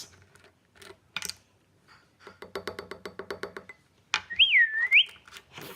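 Edited-in music and sound effect: a few faint taps, then a quick run of pitched plinking notes, then a whistle-like tone that dips and rises for about a second.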